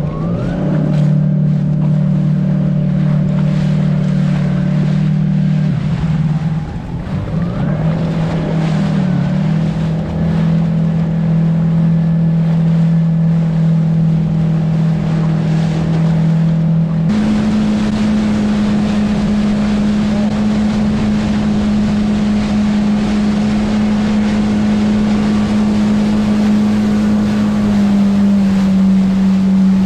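Jet ski engine running steadily under way, with water rush and wind noise. Its drone rises briefly at the start and dips about six seconds in. At about seventeen seconds it jumps up in pitch, and the hiss of spray gets louder.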